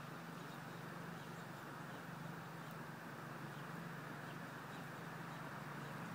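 Steady outdoor background noise with a constant low hum, and faint scattered bird chirps.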